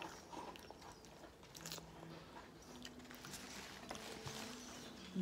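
A person chewing sushi, with soft wet mouth clicks and a few short, low hums.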